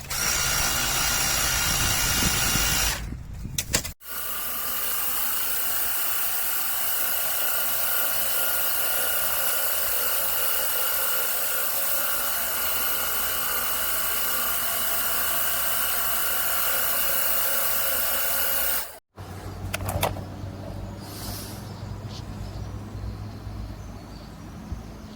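WORX HydroShot cordless pressure washer running: a steady whine from its motor and pump over the hiss of the spray. It runs in two stretches, a short one of about three seconds and then one of about fifteen seconds, each stopping abruptly, followed by quieter handling sounds with a few clicks.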